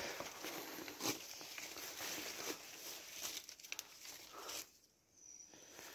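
Faint rustling and crackling of leaves and brush, with scattered sharp clicks; it cuts out briefly near the end.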